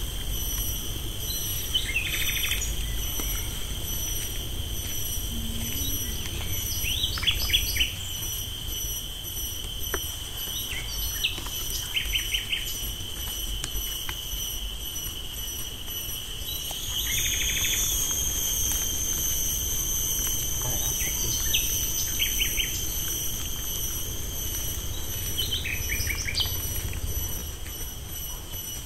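Birds chirping in short quick series every few seconds over a steady high drone of insects.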